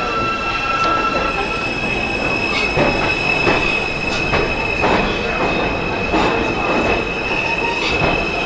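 New York subway train pulling out of the station and picking up speed, with a steady high-pitched squeal held throughout and regular clacks of the wheels over the rail joints, about one and a half a second.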